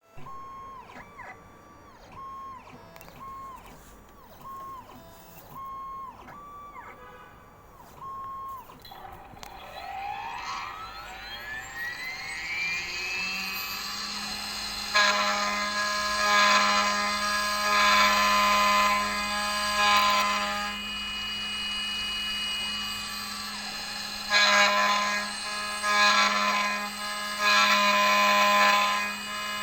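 CNC key-cutting machine cutting a new car key. It starts with a string of short single-pitch beeps. About ten seconds in, its spindle spins up in a rising whine, and from about fifteen seconds the cutter grinds into the key blade over a steady hum, loudest in two long spells.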